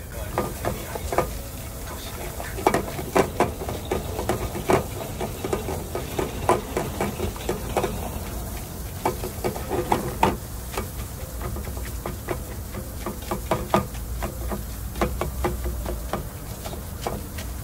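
Food frying on a hot metal shovel used as a griddle, with metal utensils scraping and tapping against it in a quick, irregular clatter.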